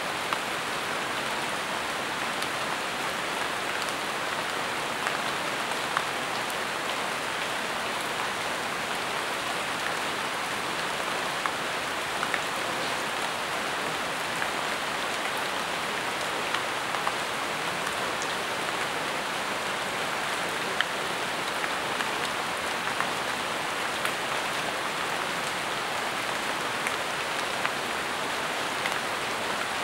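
Steady rain falling on jungle foliage: an even hiss with scattered sharper drops striking close by.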